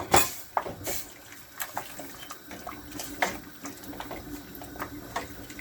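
A sharp knock on the cooking pot at the start, then scattered light clicks and a low watery hiss as the pot of goat meat simmers with chili being added.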